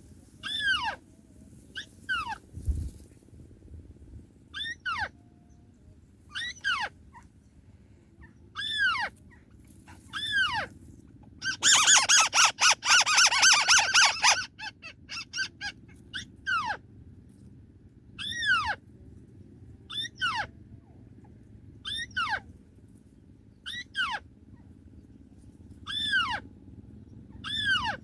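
White-browed crake calls: a series of short calls, each falling in pitch, about one every one and a half to two seconds. In the middle comes a loud, rapid chattering run lasting about three seconds.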